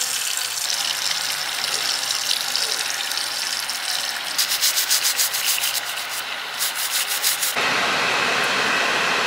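A steady hiss, then a nail file rasping back and forth on long artificial nails in quick strokes, about five a second, in two short runs. Near the end it cuts suddenly to the steady noise inside a car.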